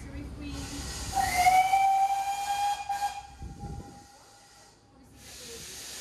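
Steam locomotive whistle, most likely GWR pannier tank 6412's, sounding one long blast of about four seconds that slides up briefly as it starts, over hissing steam.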